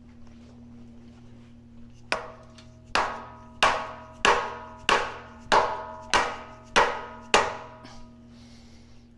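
Nine hammer blows on steel, a bit under two a second, each ringing briefly, starting about two seconds in: driving a shaft in a Minneapolis Moline G1355 tractor transmission whose bearing race is sticking in the case.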